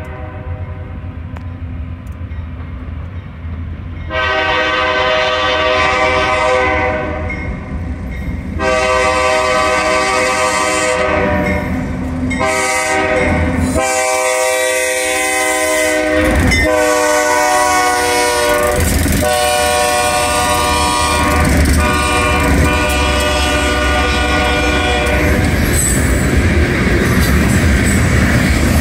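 BNSF 4336, a GE Dash 9-44CW diesel locomotive, sounding its multi-note air horn in a series of blasts for a grade crossing, the first beginning about four seconds in, over the low running of its engine. Near the end the horn stops and the wheels of the passing covered hopper cars clatter over the rails.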